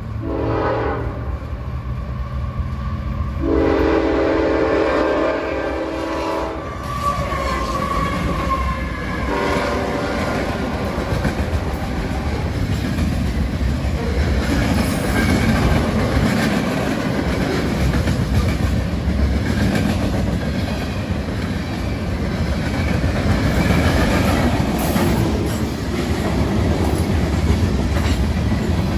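Freight train locomotive horn sounding at a grade crossing: the tail of one blast at the start, then a longer blast from about three seconds in that cuts off at about seven seconds. After it the freight cars roll past steadily, wheels clacking over the rail joints.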